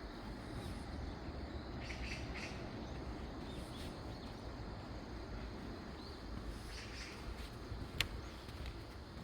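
Woodland ambience: scattered short bird chirps over a steady low background noise, with one sharp click near the end.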